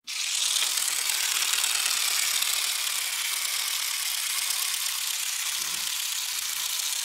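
Steady, even rushing noise with no distinct events, starting abruptly at the opening.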